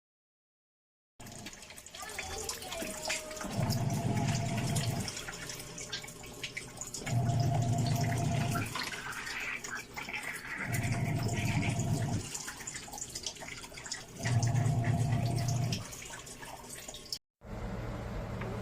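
Automatic washing machine running with water in the tub: its motor hums in four pulses of about a second and a half, roughly every three and a half seconds, with water sloshing and splashing in between.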